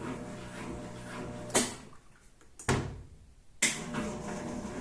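Top-loading washing machine draining on spin, its electric drain pump humming steadily. Sharp knocks come about a second and a half in, with the hum stopping, again near the three-second mark, and a louder one past three and a half seconds, after which the hum resumes. The faint catching and knocking is, by the technician's diagnosis, a faulty drain pump.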